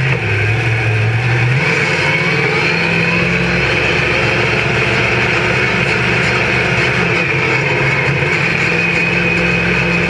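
Monster truck engine heard from inside the cab, running steadily, its pitch stepping up slightly about a second and a half in.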